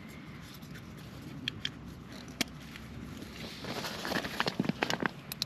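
Nylon fabric rustling and scattered small plastic clicks as the blue valve of a sleeping pad is handled and twisted, the clicks coming faster near the end.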